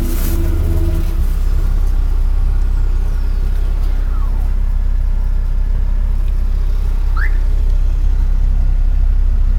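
Deep, steady, loud bass from a wall of AE GR-18F subwoofers in a car, driven by a Kicx Tornado 2500.1 amplifier and played for a sound-pressure measurement. A few higher notes drop away about a second in, leaving mostly the low rumble.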